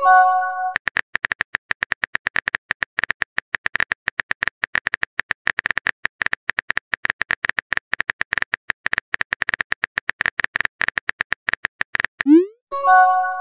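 Simulated phone keyboard typing clicks, a rapid, uneven run of taps that lasts about eleven seconds. A short chime sounds at the start. Near the end a quick rising pop is followed by another chime, the message-sent and notification sounds of a chat app.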